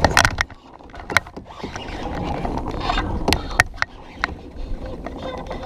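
Baitcasting reel being cranked on a retrieve, with several sharp clicks.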